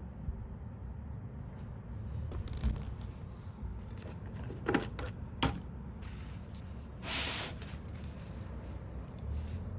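Hand tools and small metal parts handled on a workbench during disassembly: a couple of sharp clicks near the middle and a short scraping rasp a little later, over a low steady hum.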